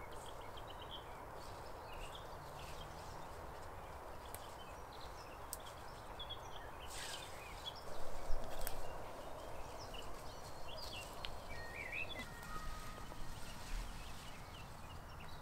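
Small birds chirping over a steady background hiss. About seven to nine seconds in comes a louder burst of rustling leaves as wild garlic is picked by hand.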